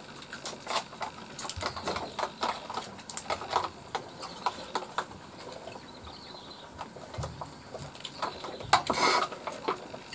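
Eating sounds: scattered small clicks and taps as people eat with their hands from plastic plates, with a brief louder rustle about nine seconds in.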